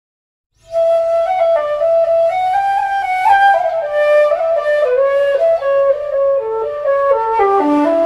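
Instrumental folk music starts about two-thirds of a second in after silence: a single melody instrument plays a flowing tune, its notes stepping and sliding into one another.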